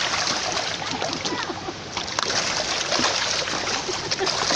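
Large carp thrashing and splashing at the surface of the water, a dense, steady patter of splashes.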